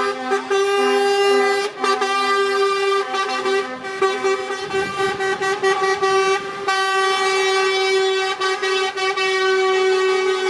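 Truck air horns sounding together, several at once. One horn is held in a long steady blast, while a lower-pitched horn gives short repeated toots during the first few seconds.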